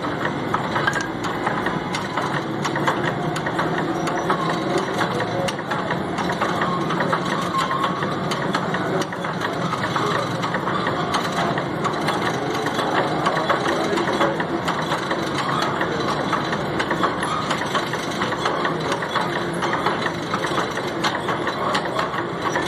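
Power hacksaw machine cutting through a solid steel round bar, the blade stroking back and forth steadily under the motor's drive, with a dense run of small metallic ticks and rattles.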